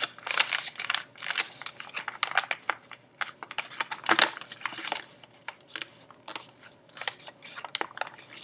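A sheet of printer paper crinkling and rustling as it is folded by hand, in irregular crackles, the loudest about four seconds in.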